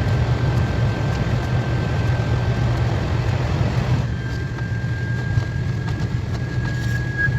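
KTX high-speed train running at speed, heard from inside the car: a steady low rumble and rushing noise with a thin, constant whine. About four seconds in, the hiss in the noise drops noticeably while the rumble and whine carry on.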